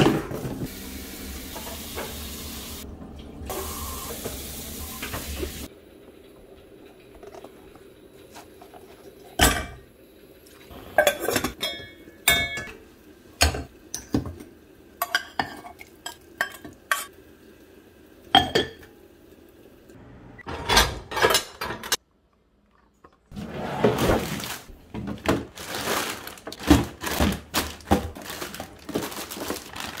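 Kitchenware being handled: containers, dishes and utensils knocking and clinking one at a time. A steady hiss runs through the first five seconds or so.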